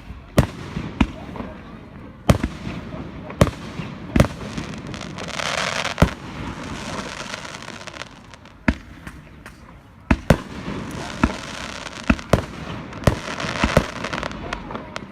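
Fireworks display: aerial shells bursting in sharp bangs at irregular intervals, sometimes two in quick succession. A hissing spread of sound comes about five seconds in and again near the end.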